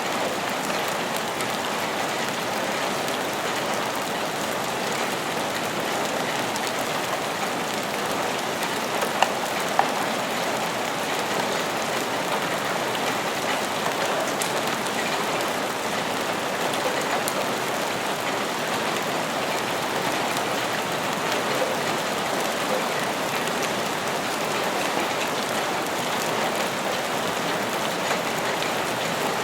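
Steady rain falling on a surface, an even hiss of many drops at a constant level, with two sharp ticks about nine and ten seconds in.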